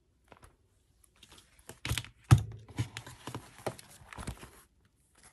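A ring-bound planner being handled: a run of clicks and knocks with papery rustling, the loudest a dull knock a little over two seconds in.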